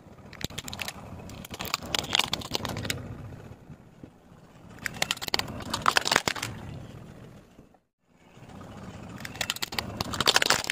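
Hard plastic toys cracking and crunching under a car tyre as it rolls over them, with a low rumble beneath. It comes in three bouts of rapid crackling, each about two seconds long.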